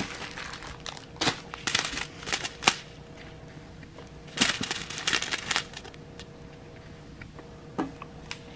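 Small clear plastic bags of diamond painting drills crinkling and rustling as they are handled, in short bursts with a pause in between.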